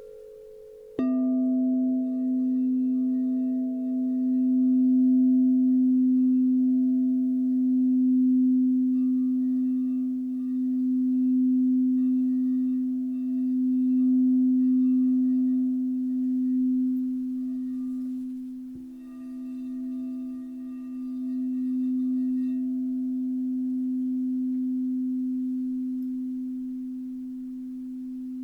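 Crystal singing bowls ringing. One bowl comes in suddenly about a second in with a low, steady, pure tone that slowly swells and fades in a waver. A second, slightly higher-pitched bowl is struck a little past halfway and rings on alongside it.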